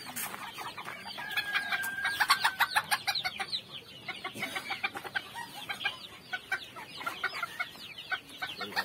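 Bantam chickens clucking and peeping, many short overlapping calls with one longer held note about a second and a half in.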